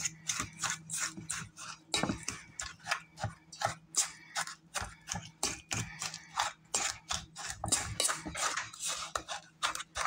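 A fork stirring a crumbly mix of ground cereal, sugar and melted butter in a stainless steel bowl: quick, repeated scrapes and clinks of metal on metal, several a second.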